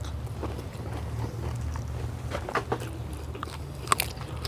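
People eating crispy deep-fried chicken wings: scattered crunches and chewing over a low steady hum, with one sharper click about four seconds in.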